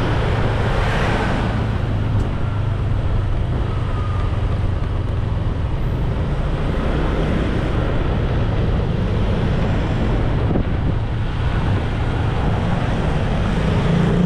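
Motorbike engine running steadily while riding through town traffic, with wind rushing over the microphone; the engine note rises near the end.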